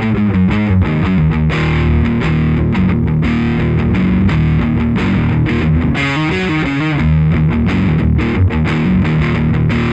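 Electric guitar played through an original late-1980s Marshall The Guv'nor overdrive pedal: a continuous distorted riff with quick changes between chords and single notes.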